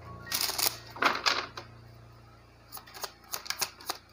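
A tarot deck being shuffled by hand: a quick flurry of card rustles and slaps, then a run of sharp card clicks about three a second starting near the end.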